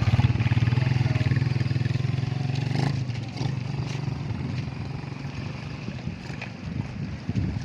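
A small engine running steadily with an even low pulse, which fades away about three seconds in, leaving faint outdoor background noise.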